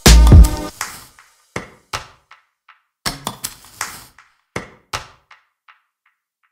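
The background music track ends: the full beat stops under a second in, leaving a sparse string of short percussive taps that ring briefly, come in small clusters and fade out.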